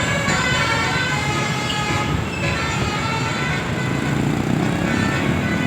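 Bus telolet horn playing a multi-note tune, several horn tones sounding together and changing pitch every second or two, over low engine rumble.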